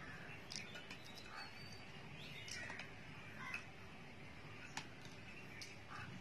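A few faint clicks of a metal spoon against a glass as dalgona coffee's whipped foam is gently stirred in, with birds calling in the background.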